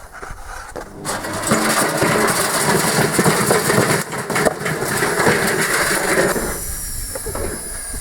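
Beko washing machine being run to destruction, clattering and banging hard for about five seconds. The clatter then stops and a high whine falls slowly in pitch as the drum winds down.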